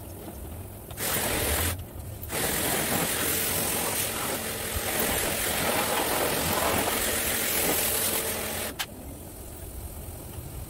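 Hissing spray while a motorcycle is being washed: a short burst about a second in, then a long spray of about six seconds that cuts off sharply near the nine-second mark.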